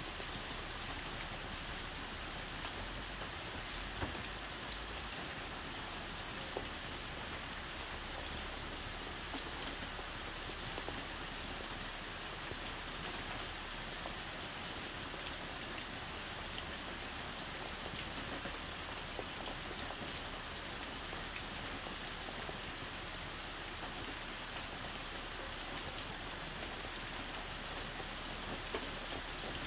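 Heavy rain falling steadily, heard from inside a camper, with an occasional louder drop.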